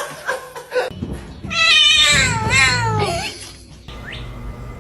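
A cat yowling: one long, wavering cry starting about a second and a half in and falling in pitch, over a low rumble.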